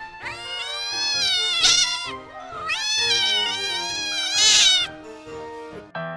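Cat yowling in two long, drawn-out calls, each swelling to a shrill peak near its end: a fighting yowl while two cats wrestle. Background music plays quietly underneath.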